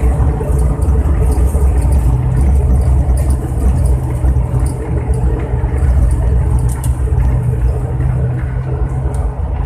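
Airliner cabin noise during the landing roll-out just after touchdown: a loud, steady engine drone over a heavy low rumble from the wheels on the runway.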